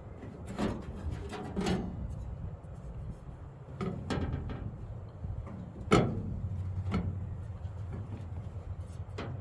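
A few scattered knocks and clunks, the loudest about six seconds in, over a steady low hum.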